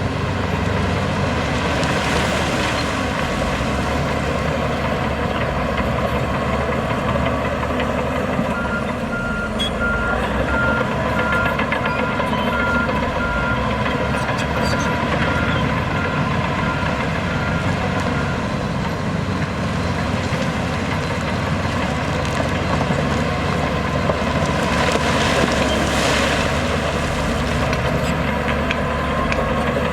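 Heavy diesel earthmoving machinery running steadily, with a reversing alarm beeping about twice a second for roughly ten seconds in the middle.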